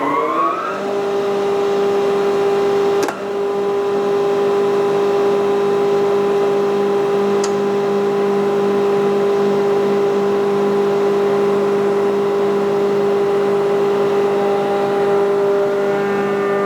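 Eaton 75 HP air-cooled rotary screw air compressor just started: its motor finishes spinning up with a rising pitch in the first second, then runs at a steady, loud hum and whine. A sharp click with a brief dip in level comes about three seconds in, and near the end the tone changes as higher tones join in.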